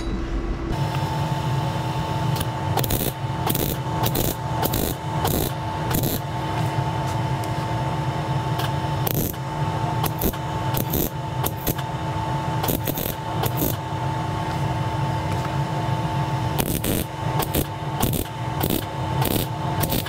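Wire-feed MIG welder arc welding steel spacers onto a plate: a steady crackling sizzle full of sharp spatter pops, over a steady hum, starting just under a second in.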